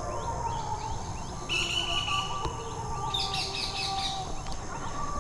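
Small birds chirping repeatedly in short high calls, busiest about halfway through, over a low steady background rumble.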